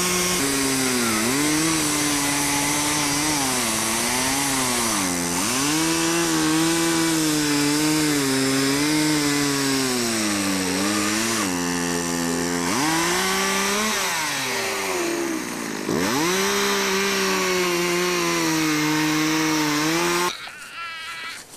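A small petrol engine running, its pitch rising and falling again and again as the throttle is worked, then stopping abruptly near the end.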